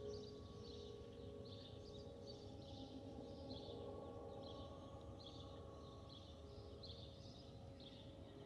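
Faint steady whistle from a departing Airbus A319's fuel over-pressure protector (FOPP) vents, a couple of steady tones over low engine rumble, fading as the jet moves away. Short high chirps from birds or insects repeat about twice a second throughout.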